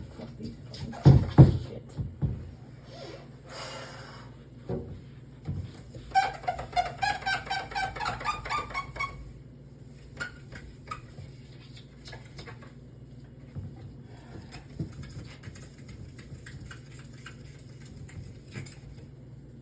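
Scrubbing the inside of a fridge: a few knocks about a second in, then a run of rhythmic squeaks for about three seconds, then softer rubbing and small clicks.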